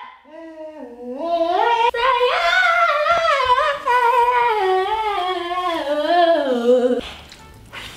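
A woman's voice singing a wordless melody, its pitch sliding up and down, breaking off suddenly about seven seconds in. Near the end comes a faint clatter of chopsticks in a metal pot.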